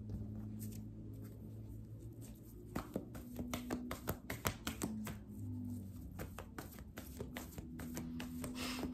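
Tarot cards being handled and shuffled: a run of quick, irregular card clicks and flicks in the middle, over soft background music with held low notes.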